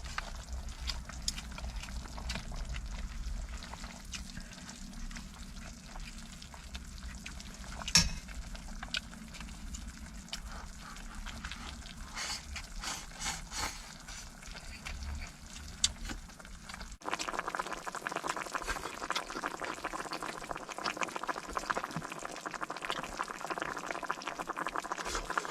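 A pot of stew simmering and bubbling, with scattered small clicks and clinks. About seventeen seconds in the sound cuts abruptly to a louder, denser, steady hiss.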